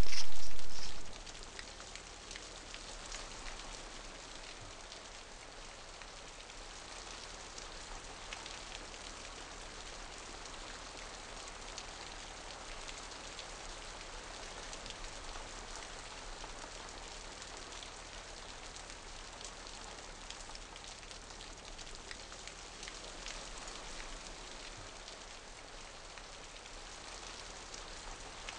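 Steady rain pattering, with a faint low hum underneath. A louder sound cuts off about a second in.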